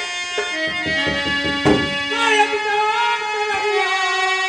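Instrumental music: a held keyboard melody with a few drum strokes in the first half and a wavering melody line in the second half.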